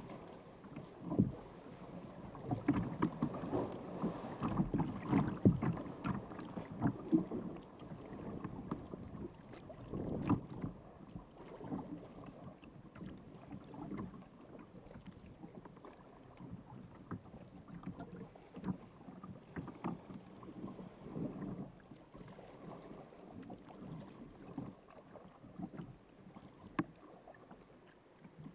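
Water lapping and splashing around a sea kayak's hull, with irregular sharp slaps of water. It is louder and busier over the first eight seconds or so, then settles to quieter lapping.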